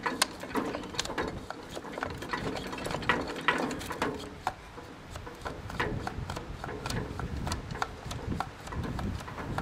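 Irregular metallic clicks and rattles as a freshly freed, lubricated part under the flywheel of a 15 HP Johnson outboard is worked back and forth by hand; the seized part is loosening up.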